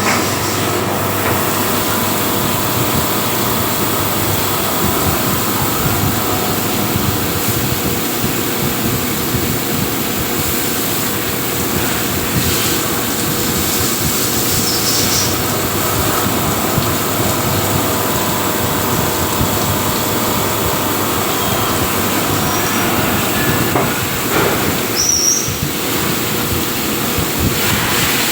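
CNC machine running: a loud, steady mechanical noise with a couple of steady hums in it, and a brief high squeal near the end.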